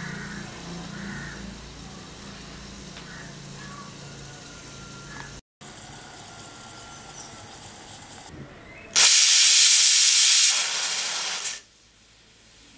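Pressure cooker whistle: steam blasting out under the weight valve in a loud hiss for about two and a half seconds, starting about nine seconds in and tailing off. It is the fourth whistle, the sign that the chana dal inside is cooked.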